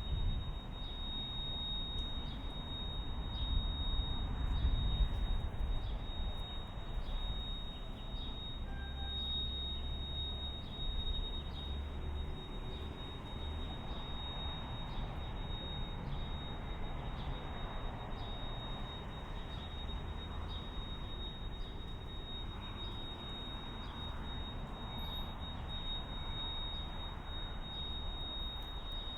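Simulated tinnitus: a steady high-pitched ringing tone that holds one pitch without a break, over low background noise.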